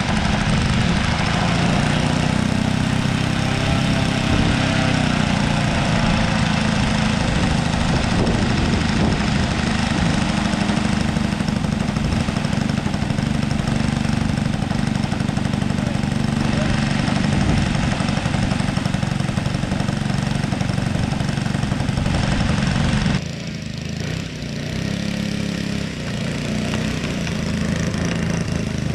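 Piston engine of a radio-controlled scale model airplane running steadily, then dropping abruptly to a lower, more uneven level near the end.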